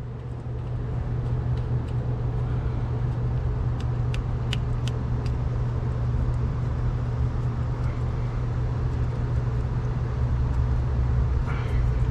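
A steady low machine hum, with a few light clicks around the middle.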